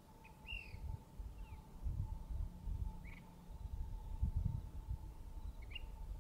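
Ash-throated flycatcher calling: four short calls, a second or more apart. Beneath them run a low, irregular rumble, which is the loudest sound, and a faint steady hum.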